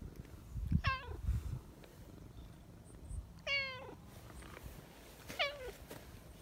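Mackerel tabby cat meowing three times, short calls about two seconds apart, the middle one held longest.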